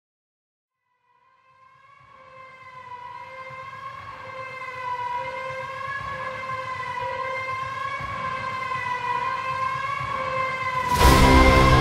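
A siren wailing with slow, slight wavers in pitch, fading in gradually and growing steadily louder. Near the end, loud music with a heavy low end comes in over it.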